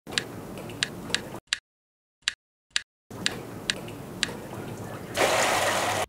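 Sharp single clicks or drips at uneven intervals over a low hiss, with the hiss cutting out for a stretch while the clicks go on. A louder, even rushing noise comes in for the last second.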